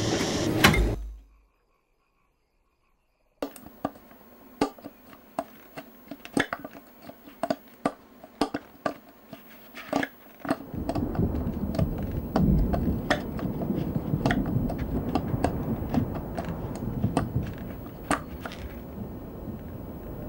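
A steady noise cuts off about a second in. After two seconds of silence, a run of irregular knocks and thuds begins, and about halfway through a low rumbling noise joins them.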